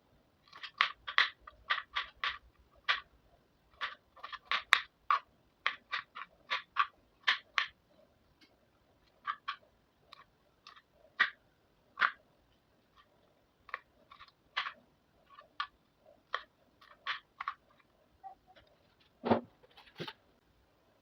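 Crisp crunching strokes of raw vegetables being cut by hand, irregular, one to three a second, with a heavier knock near the end.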